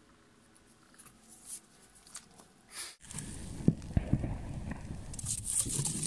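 Faint rustling of paper-wrapped firework shells handled in a cardboard box. About halfway through it gives way to louder outdoor handling noise with a few dull knocks as an aerial shell is set into its mortar tube.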